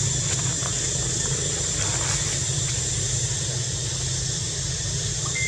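Steady outdoor background noise: a low, even rumble under a constant high-pitched hiss.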